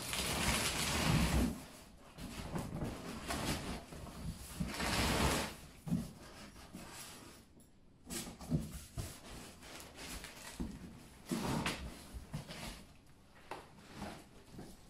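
Cardboard boxes being dragged across a concrete floor and handled: scraping and sliding, with cardboard rustles and a few knocks.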